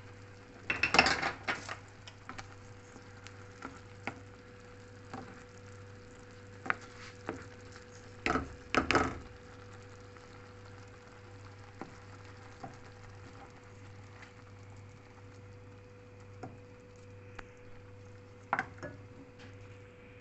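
A spoon stirring a simmering cream sauce in a metal frying pan, knocking and scraping against the pan about a second in, again around the middle, and once near the end, with a steady low hum underneath.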